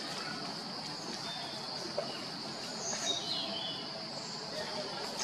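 Steady high-pitched insect buzz, with a few brief chirps about three seconds in.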